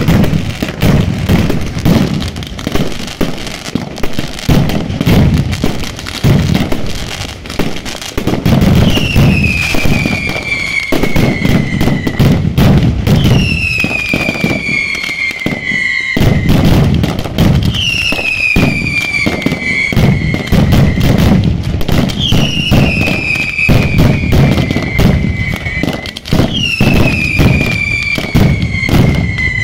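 Mascletà firecracker display: a dense, continuous barrage of loud cracks and booms. From about nine seconds in, a long falling whistle from the display rises over the bangs every four to five seconds, each lasting two to three seconds.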